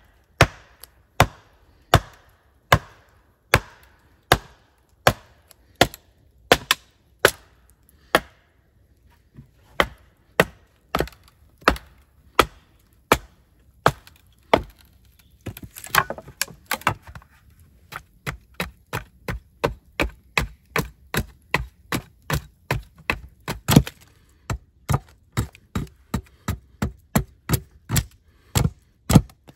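Wood being chopped: a long run of sharp, evenly spaced strikes, about one and a half a second at first, with a short pause about eight seconds in, then quicker, about two a second, through the second half.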